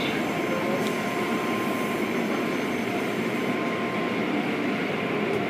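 Automatic car wash tunnel running: spinning cloth brushes working over a car amid the spray and machinery, a steady rushing noise with a thin constant whine under it.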